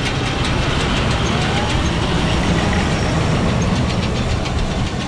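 Farm tractor machinery running in the hay field: steady engine noise with a continuous rattling clatter.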